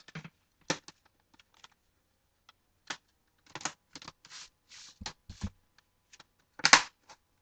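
Plastic laptop screen bezel being pressed onto the display lid, its clips popping into place in a run of irregular clicks, the loudest cluster near the end.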